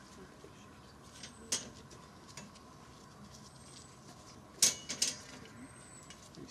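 Wire-mesh cage trap clicking and rattling as its door is worked to release a badger: one sharp click about a second and a half in, then a louder clatter of two or three clicks about two-thirds of the way through.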